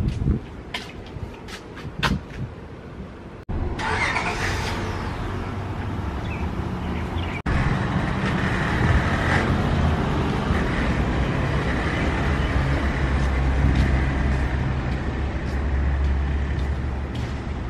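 Street traffic heard from the sidewalk, in short cut-together clips: a few sharp taps first, then the rush of passing traffic, then a motor vehicle's engine running with a steady low hum for the second half.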